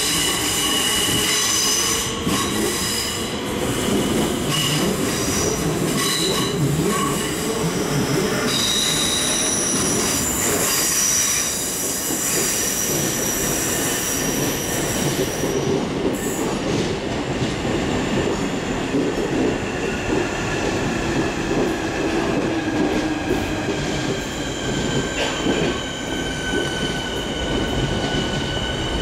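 Electric multiple-unit train wheels squealing as the train runs along curved platform track, several high steady squeal tones over a continuous rumble of wheels on rails.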